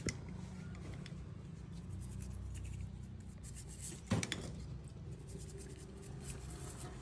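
Small scraping and clicking of hands and tools working on a motorcycle speedometer as its movement is taken out of the housing. There is one sharper knock about four seconds in, over a low steady hum.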